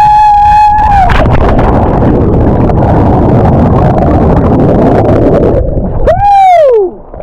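A person yells a long held shout while jumping off a sea cliff. A loud rushing noise of the plunge into the sea follows, then a second shout that rises and falls in pitch near the end.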